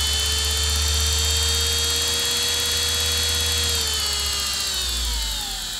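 Brushless DC servo motor driving a Wolf Jahn 8 mm watchmaker's lathe by belt, whining steadily at its top speed of about 5,000 RPM over a low drone. About two thirds of the way in, the pitch starts to fall as the motor winds down.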